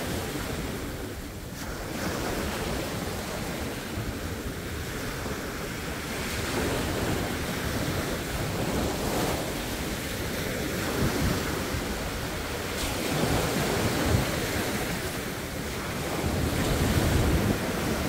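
Sea waves breaking on the shore: a continuous wash of surf that swells and eases, growing loudest near the end, with wind rumbling on the microphone.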